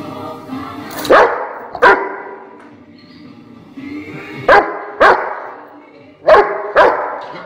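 Rottweiler barking at a kitten: six sharp barks in three pairs, each pair about half a second apart.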